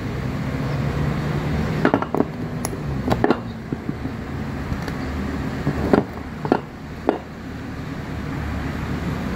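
A removed car air-conditioning compressor being tipped and turned by hand on a concrete floor to drain its oil, giving a few short metal knocks and clicks, clustered about two seconds in and again around six to seven seconds. A steady low hum runs underneath.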